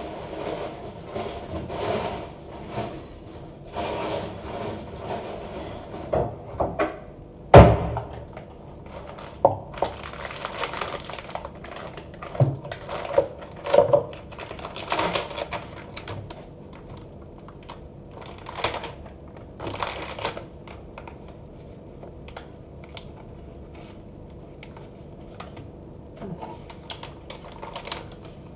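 A gold foil snack wrapper crinkling and rustling as it is handled and opened, among scattered clicks and knocks. One loud thump comes about a quarter of the way through.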